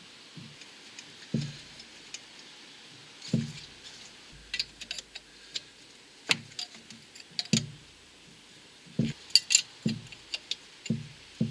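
Spanners clinking and knocking irregularly on two nuts locked together on an engine stud, as the stud is worked loose from the engine block.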